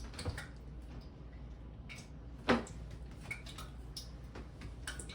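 Kitchen handling sounds: scattered light clicks and one louder knock with a short ring about two and a half seconds in, over a low steady hum.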